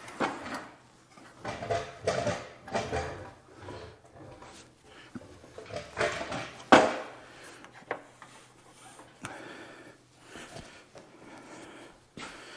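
Irregular knocking, clatter and scraping of things being handled and set down, with one sharp knock about seven seconds in, over a faint steady hum.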